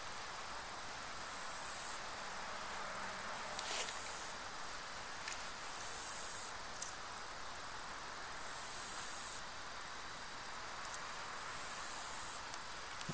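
Insects buzzing in the trees in high-pitched bursts about a second long, one every couple of seconds. There are a couple of faint clicks but no gunshots.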